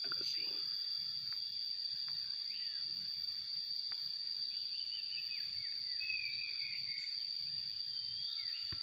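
Steady high-pitched buzz of insects, with a bird chirping several times in the second half.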